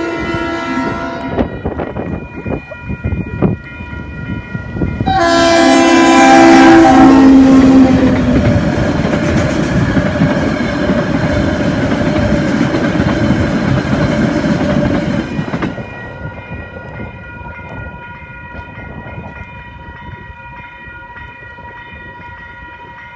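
DXR 8007 and DX 5362 diesel-electric locomotives hauling a train past with horns sounding: a horn chord at the start, then a long loud horn chord about five seconds in as the locomotives go by. The engines and the rolling train run past loudly until about fifteen seconds in, then fade, leaving quieter wagon noise and a steady high ringing tone.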